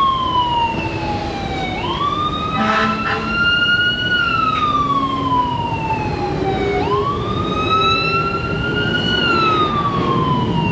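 An emergency vehicle siren in a slow wail over a steady rushing noise. Its pitch climbs for about two seconds and falls for about three, twice over.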